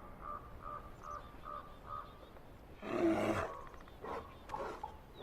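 Wild animal calls: a bird repeats a short, clear note about three times a second for about two seconds. Then a loud, harsh, rough animal call comes about three seconds in, followed by a few fainter calls.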